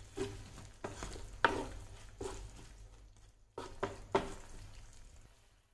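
Slotted wooden spatula stirring a thin soy-and-chilli sauce with sliced peppers and onions in a stone-coated pan: about six short scrapes against the pan, the loudest about one and a half seconds in, over a faint sizzle that dies away near the end.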